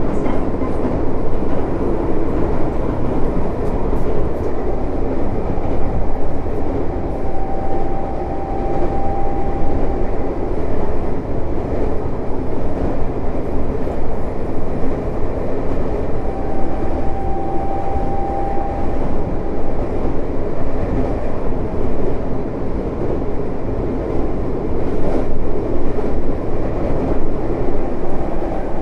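Tokyo Metro 05 series electric train with Mitsubishi IGBT inverter running at speed, heard from inside the car: a continuous rumble of wheels on rail. A faint high, thin tone comes in twice for a few seconds.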